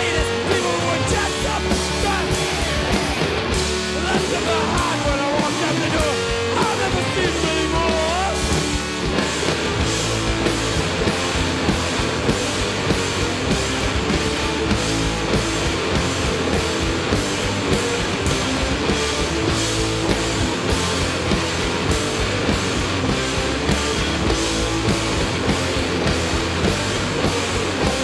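Live rock band playing: electric guitars over drum kit and bass guitar, with a bending, wavering lead line through the first several seconds. The low end fills out about nine seconds in.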